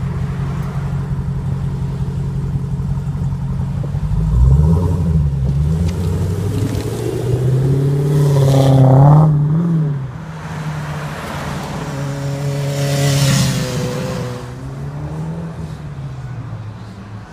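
Dodge Challenger SRT's V8 idling steadily, then pulling away hard about four seconds in, its pitch climbing through the gears with two clear upshifts, the loudest pull about halfway. The sound fades as the car drives off.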